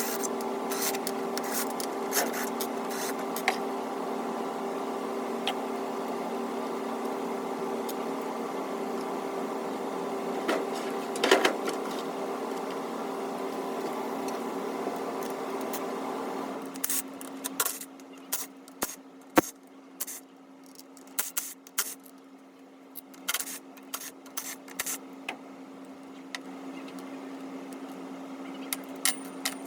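A steady electrical or mechanical hum, its pitch partly changing about halfway through. Over it are scattered light clicks and clinks of hand tools on metal, thicker in the second half, while the engine covers are taken off.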